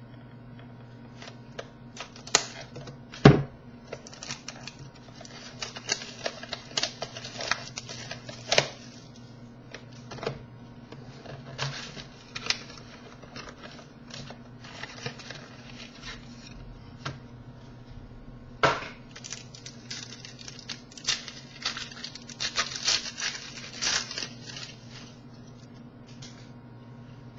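A trading-card box and pack being opened by hand: scattered clicks, crinkling and tearing of packaging, with a sharp knock about three seconds in, over a faint steady low hum.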